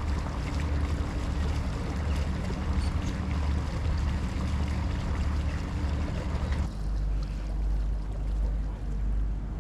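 Cruise boat's engine running with a steady low hum, water rushing past the hull and breeze hissing over it. About two-thirds of the way in the sound changes abruptly to a deeper, duller hum with far less hiss.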